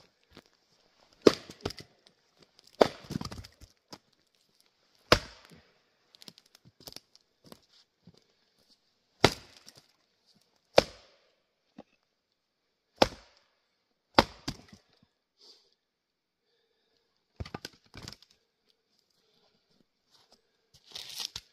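Jersey-pattern axe splitting tamarack firewood: about ten sharp chops a second or more apart, some followed by a brief crackle as the wood splits.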